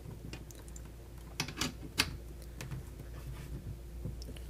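Light metallic clicks and taps of a braided fill hose's Foster quick-disconnect coupler being handled and lined up with an air rifle's fill fitting, a few scattered clicks with the clearest between one and two seconds in, over a steady low hum.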